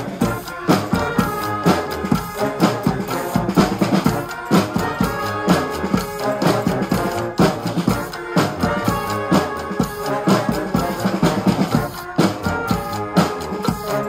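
Brass street band playing a tune: trombones and a sousaphone over marching snare and bass drums beating a steady rhythm.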